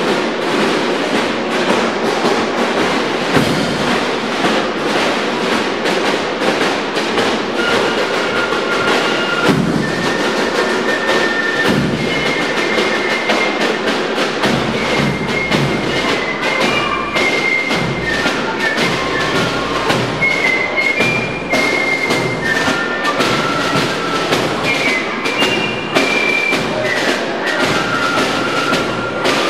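Drum-and-fife marching band playing: snare drums beat a rapid steady march rhythm with a bass drum, and fifes take up a high melody about seven seconds in.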